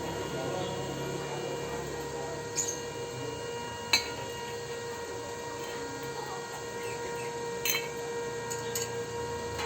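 Small welding machine humming steadily, with three short sharp metallic clinks a few seconds apart as metal is handled.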